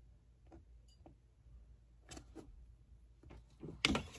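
Faint scattered clicks and taps of a paperback book being handled in long-nailed hands, then a louder, short puff of breath near the end.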